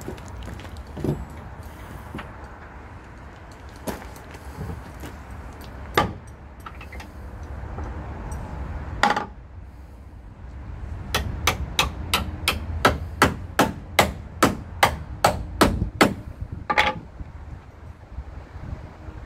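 Club hammer knocking a pin into a fairground ride tram's frame. A few separate blows come first, then past halfway a quick even run of about fifteen strikes, roughly three a second, ending in one louder ringing blow.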